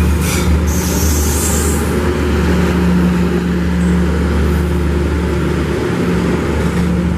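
Diesel-hauled passenger train passing close by at low speed: a steady, loud diesel drone from the train with rolling noise underneath, and a brief high hiss of air about a second in.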